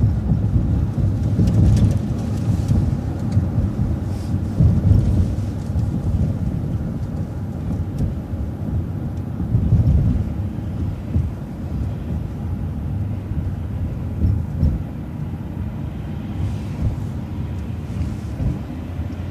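City transit bus driving along a street, heard from inside: a low, uneven rumble of engine and road noise.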